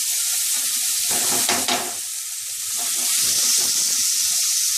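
Marinated chicken pieces sizzling steadily in a little oil on a hot tawa, with scattered crackles and a brief louder spell about a second and a half in.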